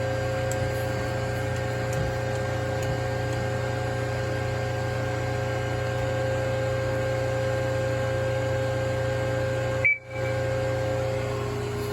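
Mazak Quick Turn 15N CNC lathe powered up, humming steadily with several held tones. About ten seconds in there is one short high beep, and the hum dips for a moment.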